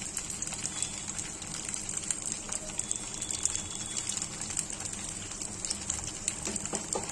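Soya chaap pieces sizzling in hot oil in an iron kadai: a steady hiss with many small crackling pops.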